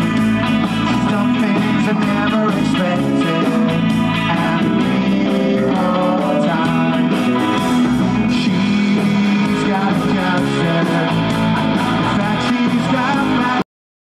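Live rock band playing: electric guitars over bass and drums, a full band sound with a steady beat. It cuts off abruptly near the end.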